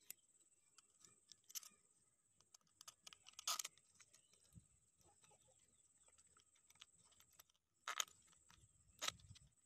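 Faint handling noises: small clicks and rustles as a sandpaper disc is worked onto a bolt with a metal washer and nut. The loudest is a short rustle about three and a half seconds in, with two more sharp rustles near the end.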